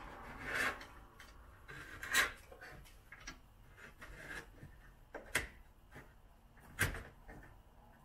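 Wire and pull line scraping and rubbing inside the hollow door pillar of a 1976 VW bay van as they are drawn up through it. Three sharp knocks stand out, about two, five and seven seconds in.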